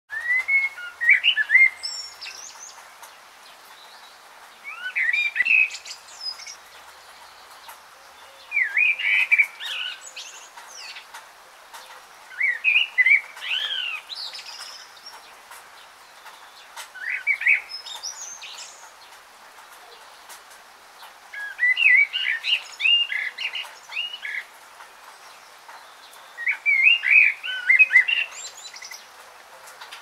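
A songbird singing short warbled phrases of quick rising and falling notes, each about a second and a half long, repeated every four seconds or so.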